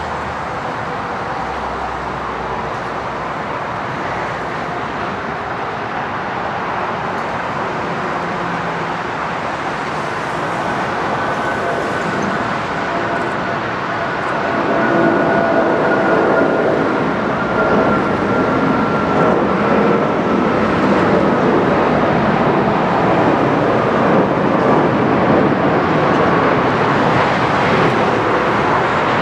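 Airbus A340-600's four Rolls-Royce Trent 500 jet engines at takeoff thrust as it lifts off and climbs out: a loud, steady rushing jet noise that swells about halfway through as the aircraft draws nearer, with faint whining tones slowly falling in pitch.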